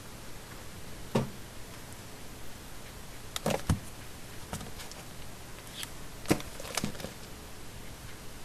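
A scattering of short knocks and taps from handling a paperback textbook at a desk, over a steady faint room hiss, with a quick cluster of them about three and a half seconds in.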